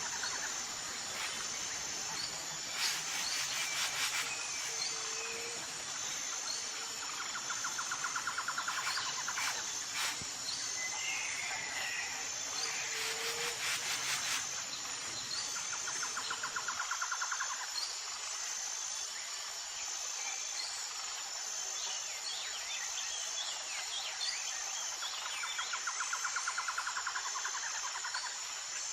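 Outdoor nature ambience: a steady high insect whine, with bursts of fast pulsing insect calls every several seconds and a few short bird chirps.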